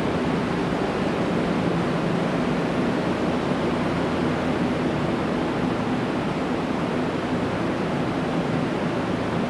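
A steady, even rushing noise with no distinct events, loudest in the low and middle range.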